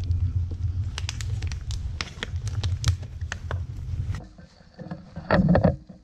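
Wind buffeting the microphone in a low rumble, with footsteps and scattered sharp rustles of walking through tall grass. The rumble stops about four seconds in, and a short, louder rustle or knock follows near the end.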